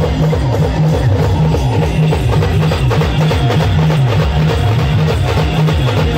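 Loud band music from a DJ truck's speaker stacks: a heavy bass line that keeps moving from note to note, with drums and plucked-string melody over it.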